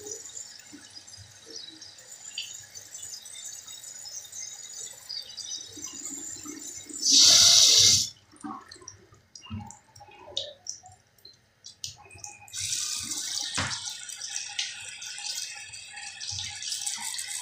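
Bathroom sink tap running as a toothbrush is rinsed under it, with a loud burst of about a second around seven seconds in. The water stops for a few seconds with small knocks, then runs again from about twelve seconds in, with one sharp knock soon after.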